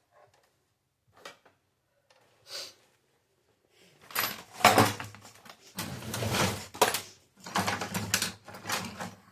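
Small metal tools and screwdriver bits being rummaged through. A few faint clicks, then, from about four seconds in, a run of loud rattling and clattering.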